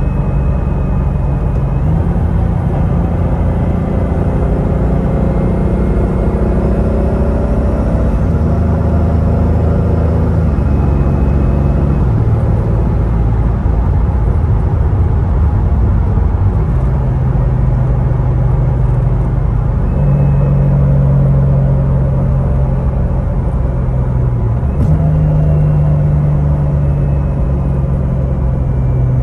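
Toyota 2JZ straight-six engine and drivetrain heard from inside the cabin while driving, running steadily with the engine note jumping abruptly to a new pitch several times as the dual-clutch gearbox changes gear, over steady road noise.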